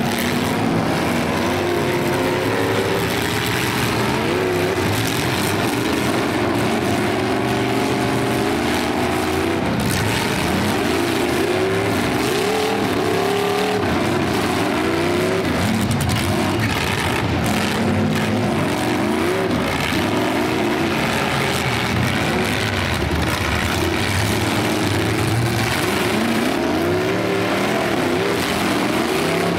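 Several demolition derby cars' engines running and revving at once, their pitches overlapping and repeatedly rising and falling as the cars accelerate and back off.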